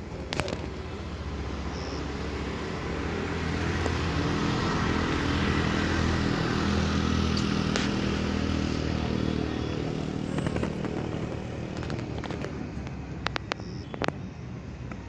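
A motorcycle passing, its engine growing louder to a peak about halfway through and then fading away. A few sharp clicks sound near the end.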